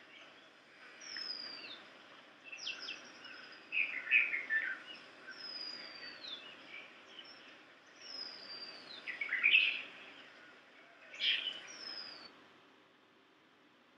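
Songbirds singing outdoors: a high, clear whistle that slides downward, repeated about every one and a half to two seconds, over bursts of busier chirping notes. The birdsong stops abruptly about twelve seconds in.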